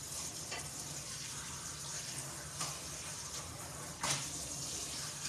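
Kitchen tap running steadily while a knife is rinsed under it, with a few light knocks.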